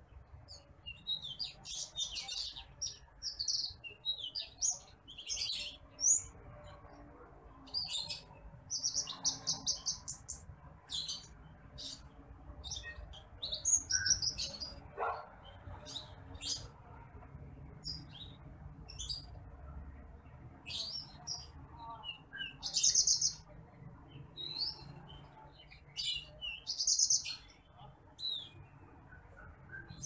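A caged branjangan apung (titimplik), the paddyfield pipit, singing: short high chirps and fast buzzy trills in quick bursts, one phrase every second or so with brief pauses between.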